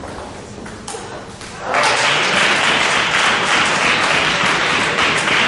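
A sharp table tennis ball click about a second in, then the hall audience breaks into applause that keeps going.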